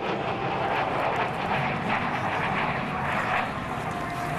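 Steady jet roar of an F-16 fighter's single engine as it banks away overhead.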